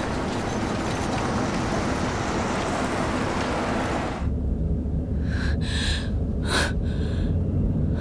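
Busy street noise, then a sudden change about halfway through to the steady low rumble of a car's engine heard from inside the cabin. A few short sounds come over the rumble.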